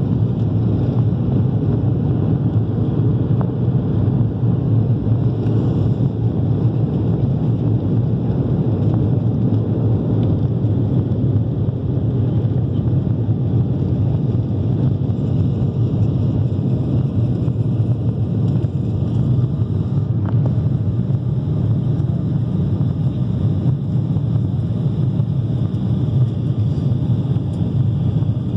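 Cabin noise of an Embraer 190's two GE CF34-10E turbofan engines at takeoff power, heard from a window seat by the wing: a steady, loud, low-pitched noise that holds unchanged through the takeoff roll and the initial climb.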